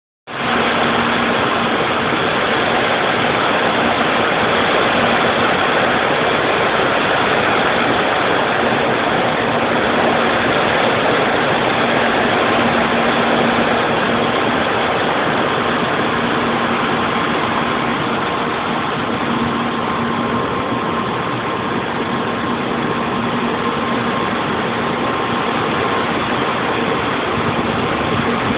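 Typhoon wind and heavy rain making a loud, steady rushing noise, with a faint steady hum underneath.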